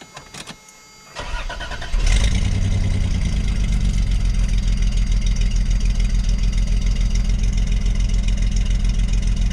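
Early-1990s Toyota 4Runner engine started with the key: a few clicks, then the starter cranks briefly and the engine catches about two seconds in, settling into a steady, evenly pulsing idle.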